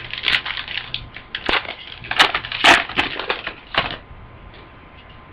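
Trading cards and their foil pack wrapper being handled: a run of crinkling, crackling clicks for about four seconds that then stops.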